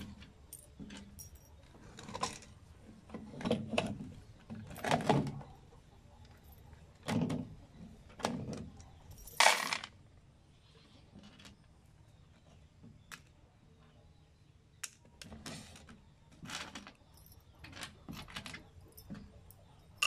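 Small metal screws and washers clinking and rattling in bursts as they are handled and dropped into plastic PVC trays, with scattered lighter clicks between.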